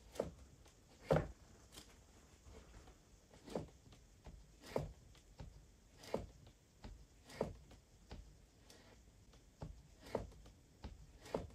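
A slow, uneven series of dull knocks, about one every second and a quarter, some stronger than others, with a faint room hush between them.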